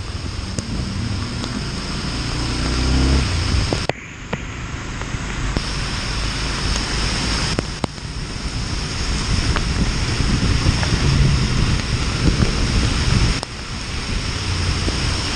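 Wind and rushing water noise from riding a Honda CB Twister 250F motorcycle on a rain-soaked road, with its single-cylinder engine running underneath. The engine note rises over the first few seconds, drops away about four seconds in, then builds again.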